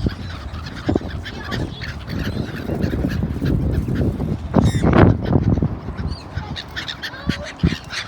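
A crowd of waterfowl calling together, many short overlapping calls from ducks, geese and gulls, with a louder rush of sound about five seconds in.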